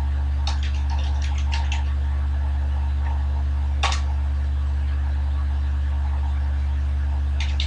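Computer keyboard keys tapped in a quick run of about eight strokes, typing a password, then one sharper keystroke near four seconds in for Enter. A steady low hum lies under the typing.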